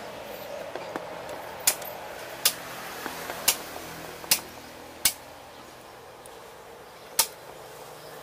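Six sharp small clicks and taps, irregularly spaced about a second apart, as a crimped wire terminal is handled and fitted at a motorcycle's wiring block, over a faint steady background hiss.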